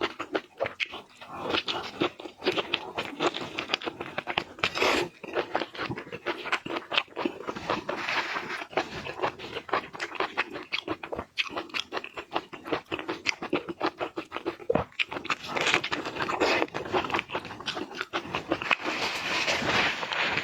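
Close-miked eating sounds of a person chewing seafood: dense, irregular crunching and wet crackling bites.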